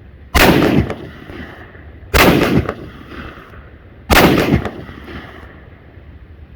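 Three shots from an M1 Garand, a semi-automatic .30-06 rifle, fired at an even pace about two seconds apart. Each is a sharp report with a short echo.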